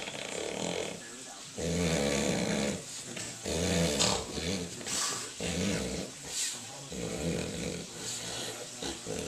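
A man snoring loudly: a string of snores about a second long each, coming roughly every one to two seconds.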